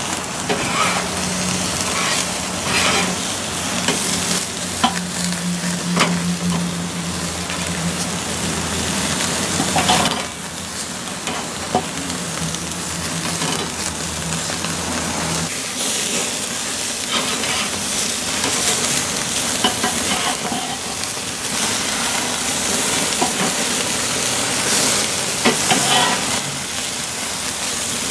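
Burger patties sizzling on a charcoal Weber kettle grill over the open coals, with fat dripping onto the fire and flaring up. It is a steady sizzle with frequent crackles and pops.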